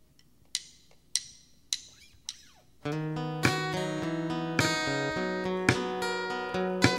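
Four evenly spaced clicks counting in the song, typical of a drummer's stick count-in. About three seconds in, the band comes in: acoustic guitar strumming chords over light drums.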